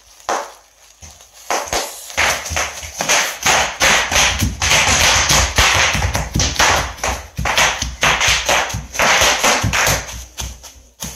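Bubble wrap being trodden on by a child: quick, irregular pops mixed with crinkling plastic and the dull thud of small feet on the floor. A few scattered pops at first, then a dense run of popping from about two seconds in that thins out near the end.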